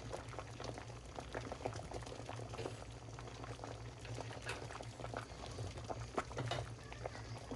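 A pot of sea urchin seaweed soup (miyeokguk) boiling, with irregular small bubbling pops over a steady low hum.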